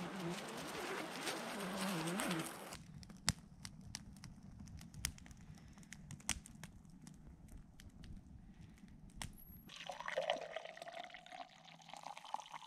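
Campfire crackling with scattered sharp pops, then coffee poured from a French press into a stainless steel tumbler, the pour rising in pitch as the cup fills near the end. It opens with a wavering low hum of unclear source.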